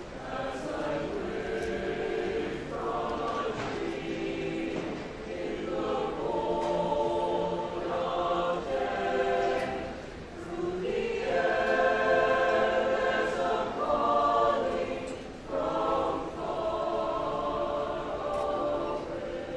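High school concert choir singing in parts: held chords in phrases of a few seconds, with brief breaks between phrases.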